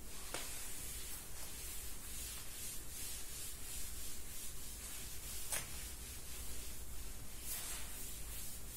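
Felt chalkboard duster wiping a chalkboard in repeated rubbing strokes, with two sharp knocks, one just after the start and one past halfway.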